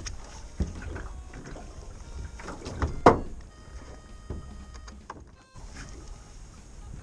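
Knocks and handling noises on a small fishing boat on the water. The loudest is a single thump about three seconds in.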